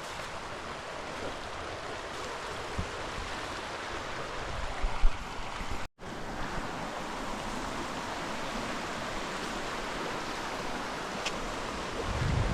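Steady rush of fast-flowing water over rocks, with low wind rumble on the microphone around five seconds in and again near the end. The sound cuts out for an instant about six seconds in.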